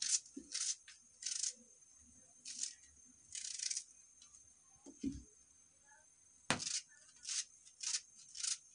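Small kitchen knife slicing through a raw onion held in the hand: a string of short crisp crunches at an uneven pace, with a dull thump about five seconds in and a sharper knock soon after.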